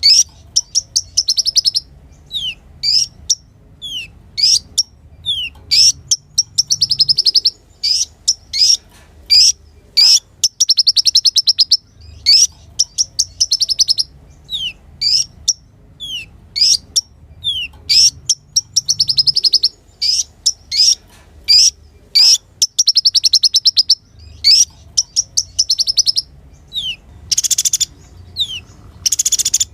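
Kolibri ninja (a sunbird) singing: a steady run of short, high, downward-sliding chirps, broken every few seconds by fast trills about a second long. Near the end come two louder, harsher bursts.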